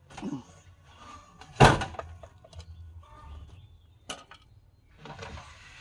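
A heavy wooden slab set down hard on a table saw's bed, one loud thud about a second and a half in, followed by lighter knocks and a scraping shuffle as it is pushed into place. The saw is not running.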